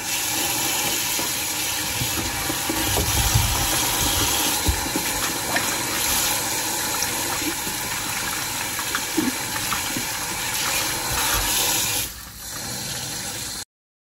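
Kitchen tap running full onto fruit and vegetables in a sink, splashing as hands rub and rinse them under the stream. About twelve seconds in it drops quieter, then cuts off abruptly just before the end.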